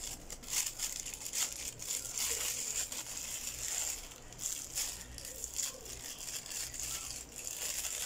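Packaging and paper rustling and crinkling as they are handled, an uneven string of short crackles.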